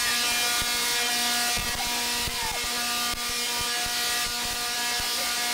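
Large Tesla coil discharging arcs onto a metal Faraday cage: a loud, steady electric buzz with rapid snapping crackles throughout.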